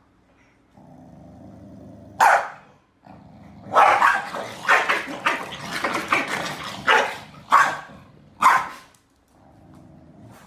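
A pet animal giving a run of loud, short, sharp calls, several in quick succession from about two seconds in, over a faint steady hum.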